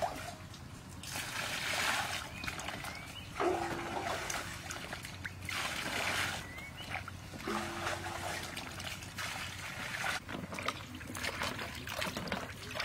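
Water poured from a plastic jug into a steel basin, splashing over vegetables being rinsed in it, in several pours a few seconds apart.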